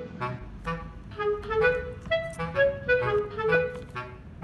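Background music: a light melody of short notes over a steady bass beat.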